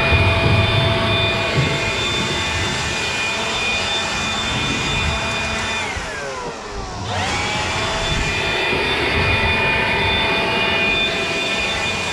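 A small electric motor, as in a shop vacuum or blower, whining steadily. About six seconds in its pitch dips, then it spins back up a second later.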